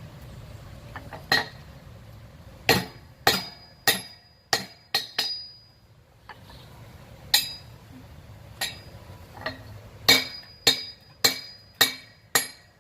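Hand hammer striking a block of hot mild steel on an anvil: a string of sharp, ringing blows about two a second, with a pause of about two seconds midway.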